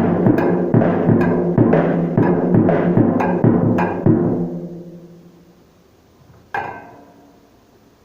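Drum kit struck in a steady beat, about two or three hits a second, each with a ringing drum tone. The hits stop about four seconds in and the ringing fades out, then one more single hit comes near the end.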